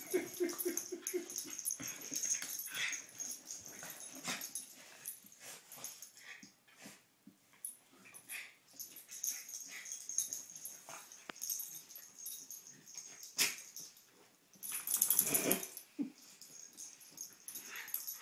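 Two small Jack Russell terriers play-fighting: short growls, breathy grunts and scuffling come and go, with a louder outburst about fifteen seconds in.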